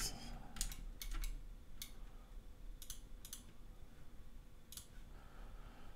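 Computer mouse buttons and keyboard keys clicking, about seven separate clicks spread irregularly over a few seconds, over a low steady hum.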